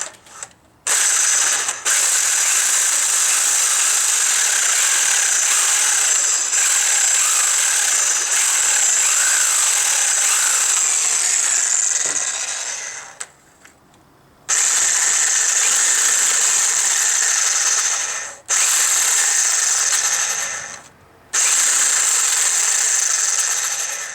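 Sawzall reciprocating saw cutting through a metal EGR tube. It runs in long, steady stretches and stops briefly just after the start, for about a second and a half past the middle, and twice more briefly near the end.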